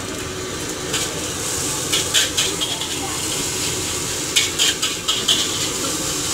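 Martabak frying on a flat iron griddle, sizzling steadily, with sharp clicks and scrapes of metal utensils in short clusters about two seconds in and again around four and a half to five seconds in.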